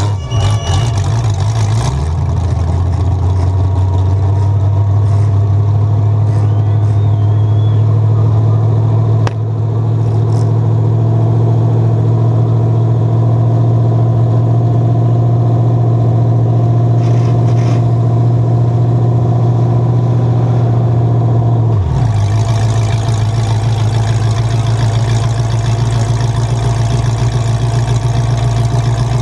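Demolition-derby Chevy truck's LS1 V8 idling steadily through open exhaust stacks, heard loud from inside the stripped cab. The engine speed dips briefly near the end.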